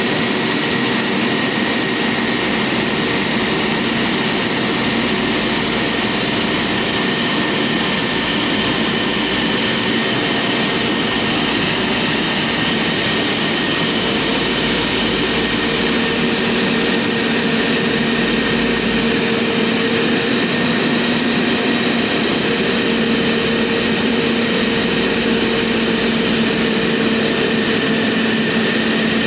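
Heavy road-construction machine engine running steadily, a continuous drone with a steady whine over it.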